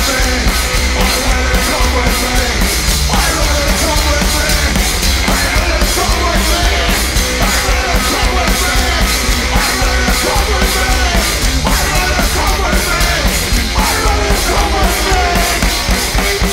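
Live blues-rock band playing loud: a fast, steady drum beat under electric guitar, with a bending lead melody over the top.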